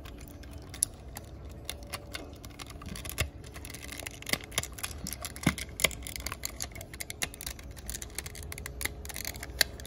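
Hard plastic parts of an i-Dog pup robot toy clicking and knocking as they are handled and pressed together: a run of irregular small clicks and taps.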